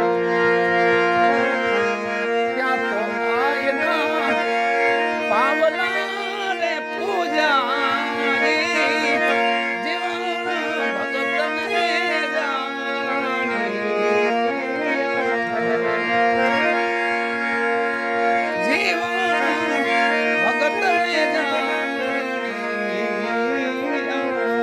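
Devotional folk music: a harmonium holds steady chords while a melody glides and bends above it, with tabla drumming along.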